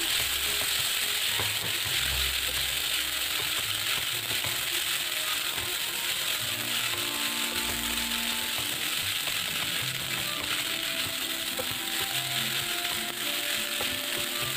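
Rice vermicelli and fried garlic sizzling as they are stirred and scraped around a nonstick wok with a silicone spatula, a steady hiss with irregular scraping ticks, under soft background music.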